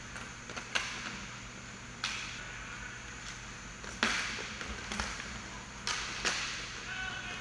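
Sharp clacks of hockey sticks striking the puck and the rink surface during play, about five over several seconds with the loudest about four seconds in, over a steady low hum.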